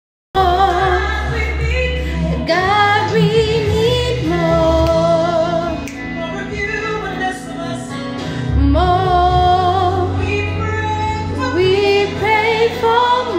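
Gospel song playing, a woman singing a wavering lead melody over a steady bass line.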